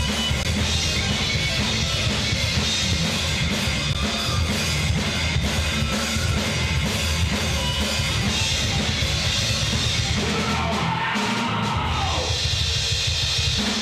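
Live heavy metal band playing loud: distorted electric guitars, bass and drum kit. About ten seconds in, the drums and bass drop out and a held guitar note bends up and back down as the song winds down.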